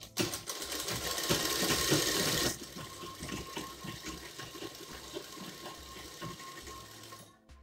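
Motor-driven domestic sewing machine stitching through cotton fabric, with a steady whine. It is louder for the first two and a half seconds, then runs quieter until it stops just before the end.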